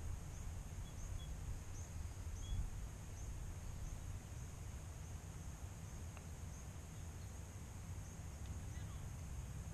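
Outdoor ambience: a steady low rumble of wind on the microphone, with a high, thin chirping that repeats roughly twice a second. A single faint click about six seconds in.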